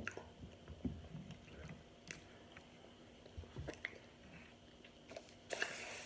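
Close-up chewing of toasty baked cornstarch chunks: soft, scattered crunches and mouth clicks. A brief rustle of handling noise comes near the end.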